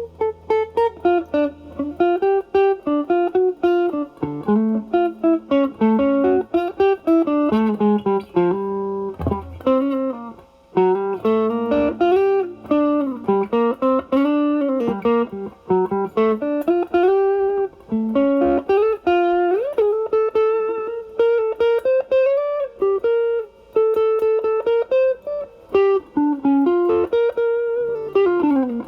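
Electric guitar (Stratocaster, single-coil pickups) played through an Ibanez Tube Screamer Mini overdrive into a Marshall Valvestate amp's drive channel, with the drive set so the tone cleans up. It plays improvised single-note blues lead lines with string bends and vibrato.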